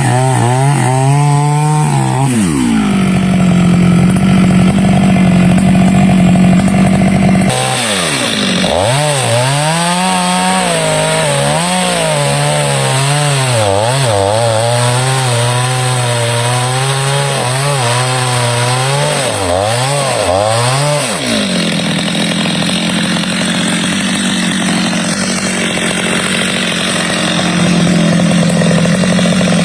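Stihl two-stroke chainsaw cutting teak wood, its engine speed swinging up and down repeatedly for long stretches, between steadier stretches at high revs.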